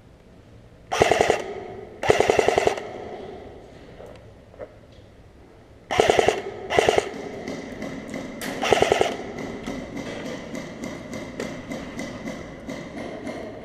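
Airsoft guns firing short full-auto bursts, five in all, each a rapid rattle of shots lasting about half a second. After the last burst comes a run of faint ticks, about three a second.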